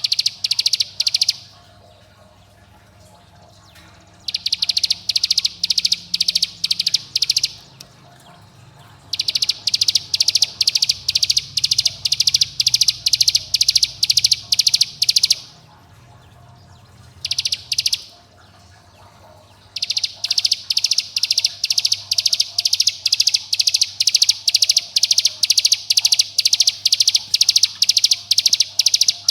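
Ciblek gunung (mountain prinia) calling in its rapid 'bren' style: runs of sharp, evenly repeated notes at about four a second, broken by pauses of one to two seconds and then going on unbroken for the last nine seconds or so. This is a lure call used to provoke other prinias into answering.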